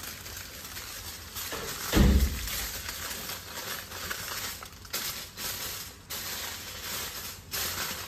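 Aluminium foil crinkling and crackling as it is folded and wrapped around hair, with many small crackles, and a low thump about two seconds in.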